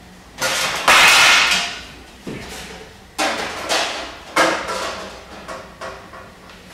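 Metal plates, trays and bowls clanking against one another as they are picked up and stacked: a string of about nine ringing knocks. The loudest comes about a second in and rings on for nearly a second.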